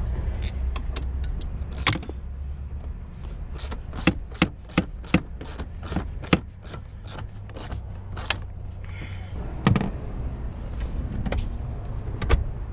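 Metal hand tools clicking and clinking against a car's bolts and body, with a run of sharp clicks in the middle, over a steady low rumble.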